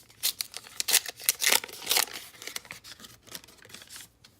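A foil baseball-card pack being torn open and its wrapper crinkled: a quick run of sharp rips and rustles over about two seconds, then lighter rustling handling.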